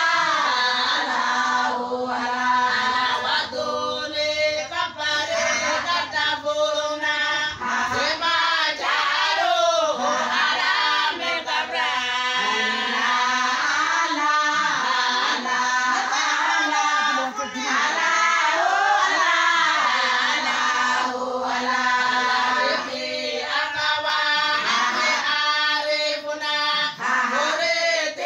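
A group of women singing a Somali Bantu song together, in continuous phrases with short breaks between them.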